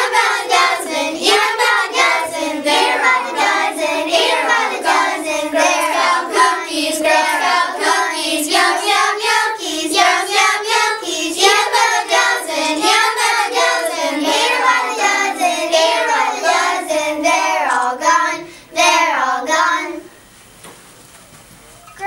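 A group of young girls singing together. The singing stops about 20 seconds in, and there is a brief lull before the voices come back at the very end.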